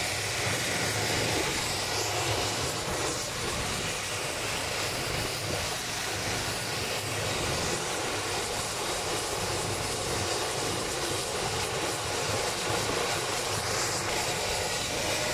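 Pilot-transfer helicopter with a ducted tail fan hovering low overhead, its rotor and turbine noise steady and loud.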